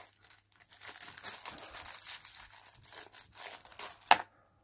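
Small clear plastic bag being handled, crinkling irregularly, with one sharp click about four seconds in.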